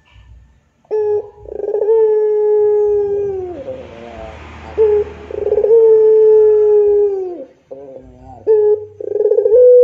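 Barbary dove (ringneck dove, the Indonesian puter) cooing in the long drawn-out pelung style: a short note and a brief trill, then a long held coo that slides down at its end, repeated about every four seconds.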